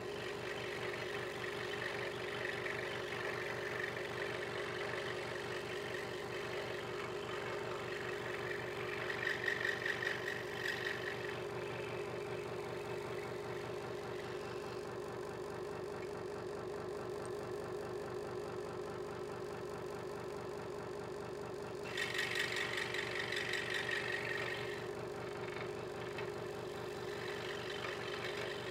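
Hegner Multicut 2S scroll saw running steadily, its reciprocating blade cutting a small piece of wood. Twice, about a third of the way in and again about three quarters through, the cutting grows louder and hissier for a couple of seconds.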